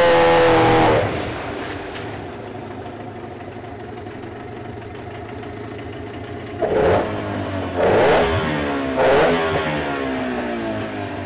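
Mikatsu 9.9 outboard motor running in a water test tank, its propeller churning the water. It runs at high throttle, drops to a lower speed about a second in, then is revved up three times in quick succession near the middle, each rev rising and falling. It now runs properly with its grass-clogged exhaust flushed clear, which was the whole fault.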